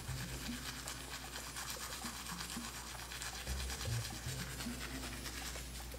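Manual toothbrush scrubbing teeth in quick, even back-and-forth strokes, brushed gently around a mouth healing from wisdom-tooth extraction.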